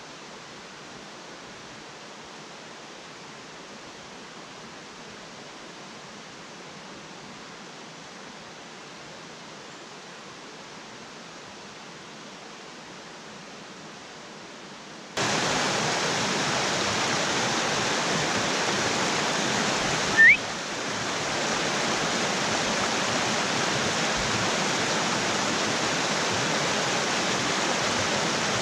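Faint, steady rush of a river heard from farther off, then, about halfway, the much louder rushing of a shallow rocky river over small cascades close by. About two-thirds of the way through, one short rising chirp stands out above the water.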